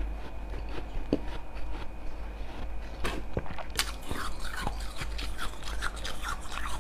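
Slushy ice being chewed in the mouth: soft crackling at first, then a dense run of crisp crunches through the second half.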